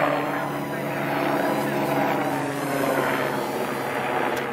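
The small electric motor and propeller of a PowerUp 4.0 paper airplane buzzing with a steady pitch. The buzz starts abruptly and stays strong as the plane flies.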